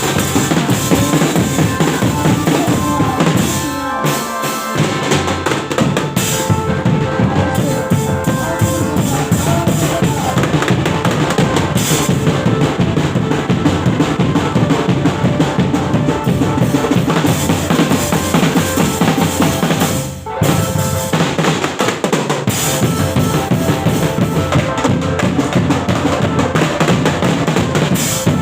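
Loud live music driven by drums, with bass drum, snare and rimshot strokes over other instruments, playing continuously. It dips briefly twice, about four seconds in and again about twenty seconds in.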